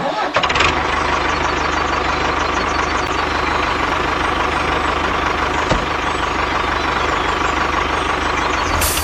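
A small machine's motor, engine-like, starts suddenly and runs steadily with an even hum.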